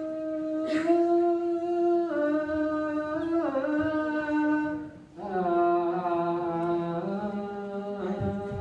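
Unaccompanied Ethiopian Orthodox liturgical chant: a sung voice holding long notes that step slowly up and down. It breaks off briefly about five seconds in, then resumes on a lower note.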